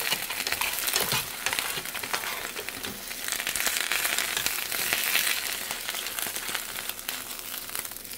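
Egg frying in a pan, a steady sizzle dense with fine crackles.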